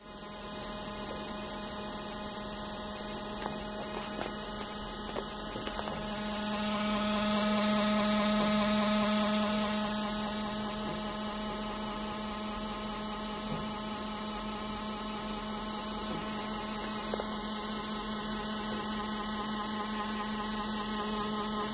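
Sony VAIO laptop's cooling fan running with a steady hum and whine that swells louder for a few seconds in the middle. This is the excessive fan noise the owner complains of, which the service centre could not fix.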